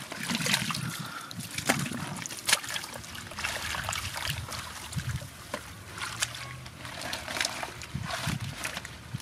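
Hands working in wet mud and shallow water: irregular squelches, small splashes and sharp clicks as fish are dug out and handled.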